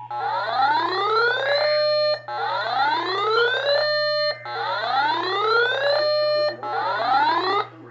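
Electronic emergency alert tone played over the radio: four rising whoops about two seconds apart, each gliding up in pitch, holding briefly and cutting off, over a steady low hum.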